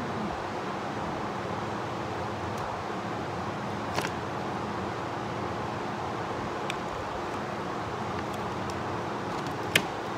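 Steel chain parts and tools clinking as they are handled: a sharp clink about four seconds in, a louder one near the end, and a few fainter ticks between. Under it runs a steady shop hum.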